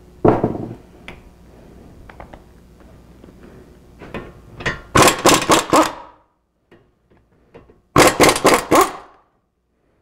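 Two runs of quick, sharp metal knocks or clicks, about six a second for roughly a second each, about five and eight seconds in, from hand tools working on a car's front disc brake rotor and caliper bracket.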